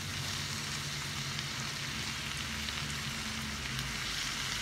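Chopped green onions, leeks and red peppers sizzling in butter and oil in a large frying pan, a steady frying hiss while the vegetables soften. A low steady hum runs underneath.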